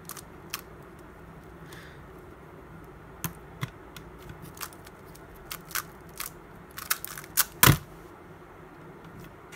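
Plastic Skewb puzzle being turned by hand: a few scattered clicks, then a quick run of turning clicks during a speedsolve, ending near the end in a loud thump as the cube is set down and the hands hit a stackmat timer to stop it.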